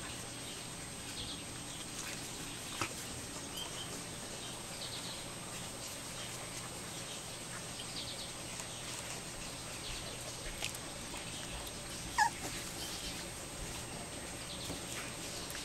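Four-week-old Norrbottenspets puppies giving faint, high whimpers and squeaks now and then, with one short, louder yip about twelve seconds in.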